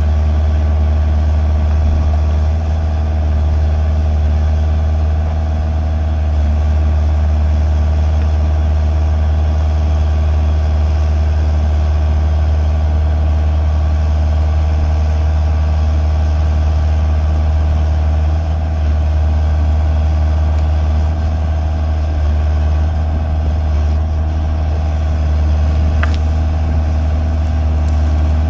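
Diesel engine of a Kubota mini excavator running steadily with a loud, even low hum.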